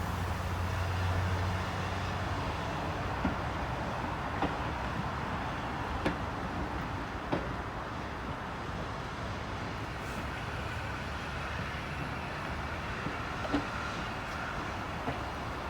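Train running on the track: a steady rumble with a few sharp clicks spread through it.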